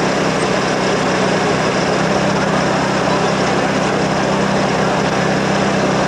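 An engine running steadily at idle, an unbroken hum.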